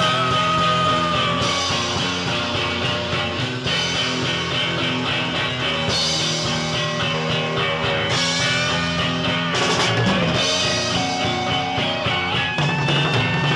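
Rock music with long held notes and a lead line that slides in pitch.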